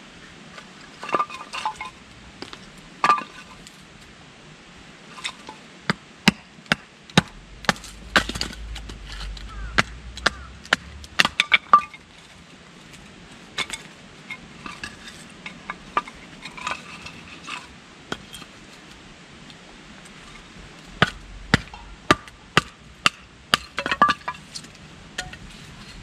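Firewood being split by hand with a blade struck by a wooden baton: sharp wooden knocks and cracks in quick clusters, with short pauses between them.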